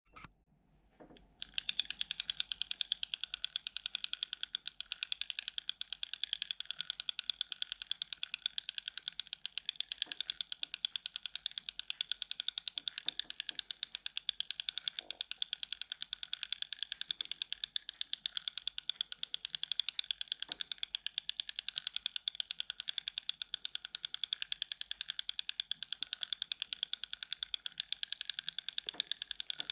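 Mitchell 308 Pro spinning reel with its handle cranked steadily, the reel mechanism giving a crisp, fast, even clicking. The clicking starts about a second and a half in.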